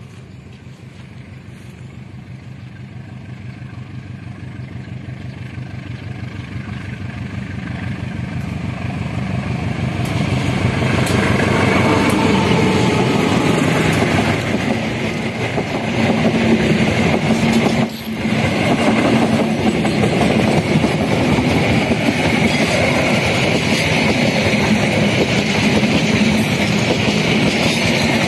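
Diesel-hauled passenger train approaching: the locomotive grows steadily louder as it nears, then the coaches run past close by, their wheels clattering along the rails.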